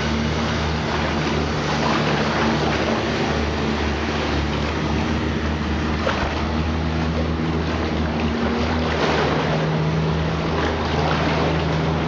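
Steady rush of sea water and wind around a kayak, with a low, even drone underneath that comes and goes.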